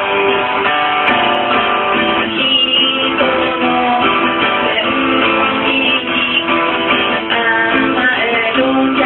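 Acoustic guitar played with a woman singing over it.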